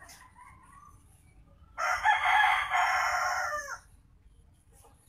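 A rooster crowing once, loud, for about two seconds, starting a little under two seconds in and dropping away at the end.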